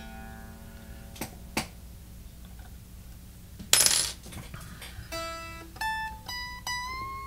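Electric guitar strings ringing, then two light clicks and a short loud clatter. From about five seconds in, single notes are picked one after another, each higher up the neck, ringing clean without fretting out now that the Floyd Rose bridge has been raised.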